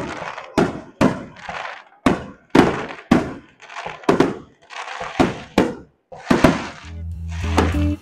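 Aerial fireworks bursting overhead in quick succession, sharp bangs about twice a second, each trailing off. About a second before the end, music comes in.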